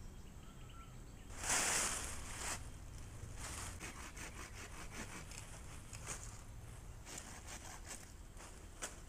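Dry branches and dead leaves rustling and crackling as they are handled in a pile of cut brush, with a loud rustle about a second and a half in, then a run of short snaps and rustles.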